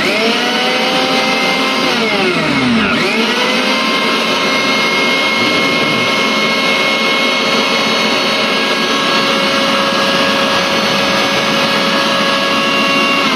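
Disnie mixer grinder's electric motor running at full speed with a steady high whine. About two seconds in its pitch sags briefly, then climbs back, and the motor is switched off near the end.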